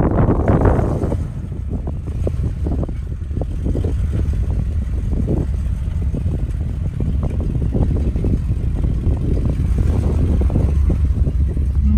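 Off-road vehicle engine running at low revs with a steady low rumble, with wind buffeting the microphone in the first second or so.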